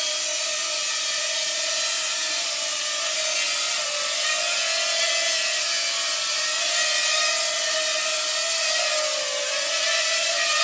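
JJRC H6D mini quadcopter's four motors and small propellers whining steadily in a low hover, the pitch wavering with throttle changes and dipping briefly a couple of times.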